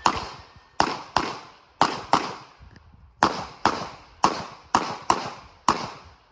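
Glock 34 9mm pistol fired rapidly in a USPSA stage: about a dozen shots, mostly in quick pairs, each with a short echo.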